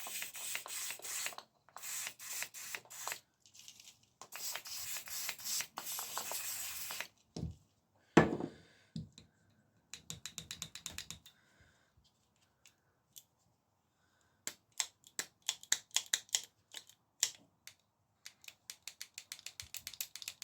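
Bicycle gear shifter's ratchet clicking rapidly over and over as its lever is worked back and forth, in runs with short pauses, with one loud thump about eight seconds in. The shifter had not been working properly and is being freed up so its lever springs back.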